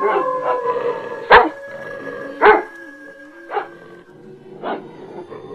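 A dog barking, single barks about a second apart that grow fainter, over a held music drone that fades out.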